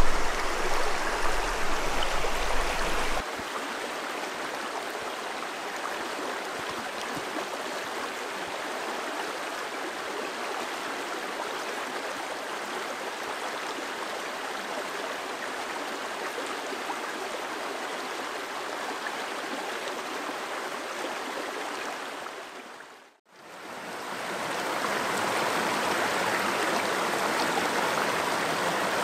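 Small rocky stream flowing, a steady rush of water over stones. It is louder and closer for the first three seconds, softer after that, fades out briefly about 23 seconds in, then comes back a little louder.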